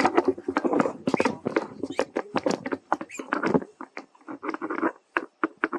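Monkeys scuffling on dry leaf litter: rapid, irregular rustling and crackling of leaves, with a brief high squeak about three seconds in.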